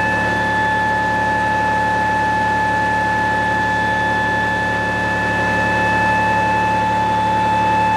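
Motor-driven generator test rig running steadily, with a constant high-pitched whine over a low hum.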